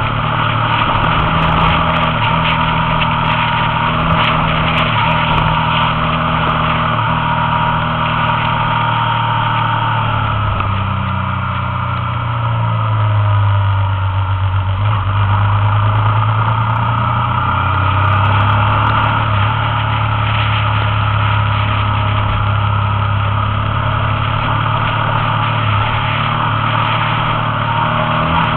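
Onboard sound of a motorcycle being ridden: the engine runs steadily under a constant rush of wind and road noise. The engine note shifts in pitch for a few seconds around the middle, then settles again.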